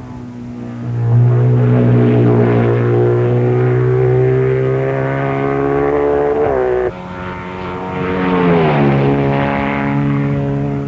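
Racing sidecar outfit engines running hard past the viewer. The engine note holds high and steady, then climbs. It cuts off abruptly about seven seconds in, replaced by another outfit's note that rises and then drops as it goes by.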